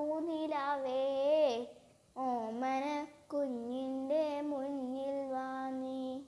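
A child singing a Malayalam children's song with no accompaniment: three phrases with short breaks between them, the last note held long before it stops at the end.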